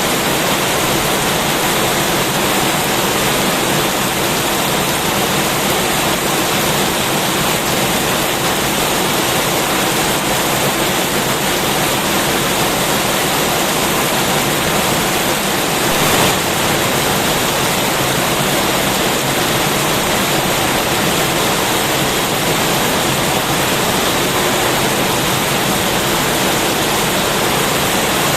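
Heavy rain falling steadily, a dense even hiss with one brief swell about halfway through.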